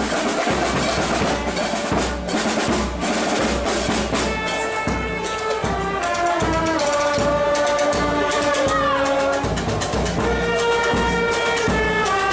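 Procession band playing: drums with a steady low bass-drum beat, joined about four seconds in by a brass melody of long held notes.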